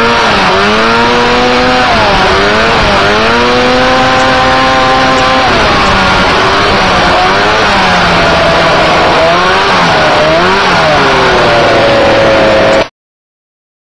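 Small off-road buggy's engine revving up and down as it drives over sand dunes, heard from on board: its pitch rises and falls again and again over a heavy rushing noise. The sound cuts off suddenly about a second before the end.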